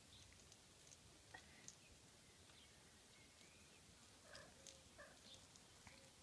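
Near silence: faint outdoor background with a few soft clicks and some brief faint chirps around the middle.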